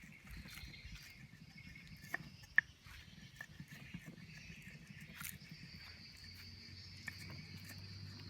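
Steady high-pitched drone of insects, with a few light clicks, the sharpest about two and a half seconds in.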